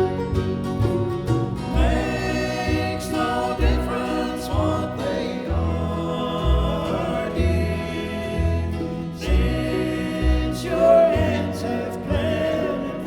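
Live bluegrass band playing a gospel song, with several voices singing in harmony over plucked acoustic strings and a steady bass beat.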